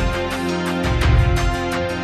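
Background music with a quick, steady pulse over held low notes.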